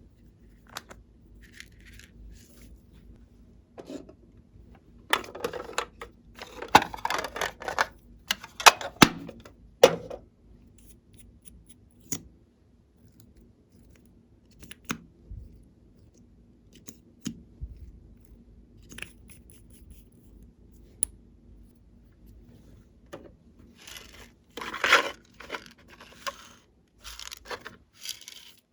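Glossy slime being worked by hand, squished, stretched and pressed, with wet sticky crackling and popping in two longer bursts and scattered single clicks between them.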